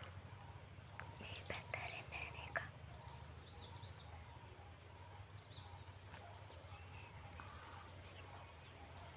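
Quiet outdoor ambience: faint, short chirps of small birds over a steady low hum, with a few light clicks in the first few seconds. The displaying peacock does not call.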